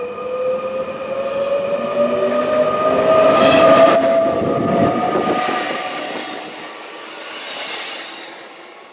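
An SNCF double-deck electric multiple unit runs through the station at speed, its wheels rumbling on the rails under a whine that rises slowly in pitch. It is loudest about three and a half seconds in, as it passes close by, then fades as it goes away.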